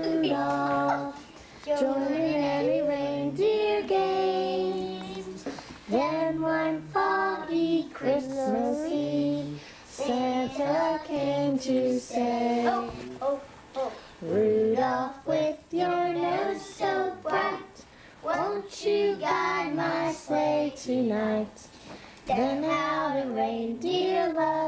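A child singing a song, held notes in phrases with short breaks between them.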